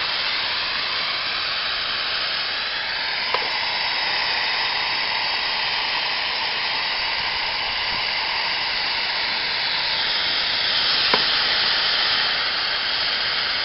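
Steady fizzing hiss from a home-made HHO electrolyzer cell running in a bucket of water, with many gas bubbles rising and popping. There are two faint clicks, about 3 seconds and 11 seconds in.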